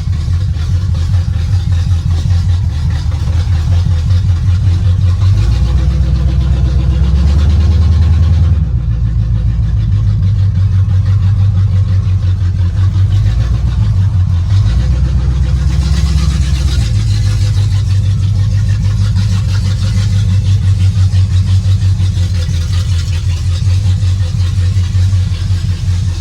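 Chevy K1500 pickup's engine running on open headers with no mufflers, a loud, deep exhaust rumble at low speed. The pitch shifts slightly a few times as the truck is eased along.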